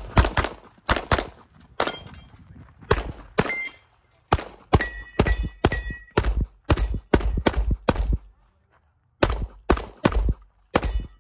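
Rapid gunshots during a multigun stage run: about twenty shots in quick strings, broken by two short pauses, one around four seconds in and a longer one after eight seconds. A ringing tone lingers after a few of the shots near the middle.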